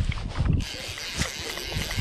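Fly reel's click-and-pawl ratchet buzzing steadily as a hooked trout runs and pulls line off it, starting about half a second in. Wind buffets the microphone with low thumps.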